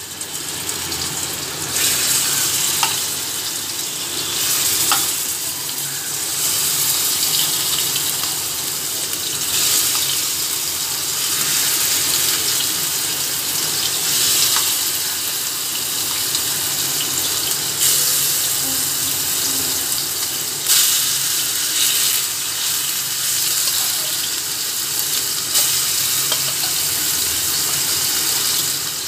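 Marinated chicken pieces sizzling steadily in hot oil in a frying pan, with small clicks here and there as more pieces are laid into the pan.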